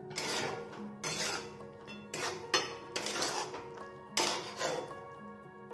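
Metal spatula scraping and knocking against a metal kadai while stirring a thick eggplant mash, several strokes at uneven intervals.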